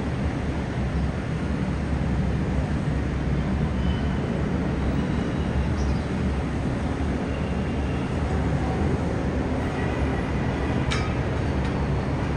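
Steady low rumble of heavy city traffic, many vehicles running at once on a congested avenue.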